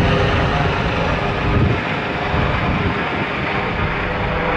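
Airbus H145 twin-turbine helicopter passing overhead as it climbs away after takeoff: a pulsing beat from the main rotor over the steady whine of the turbines, getting a little quieter toward the end.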